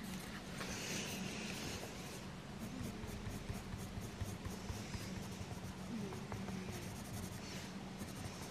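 Caran d'Ache Luminance coloured pencil shading on paper: a faint, soft scratching that comes and goes as the strokes are laid down, over a low steady hum.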